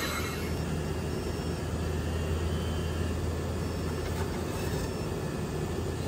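A steady low mechanical hum with a hiss of moving air, from running shop machinery.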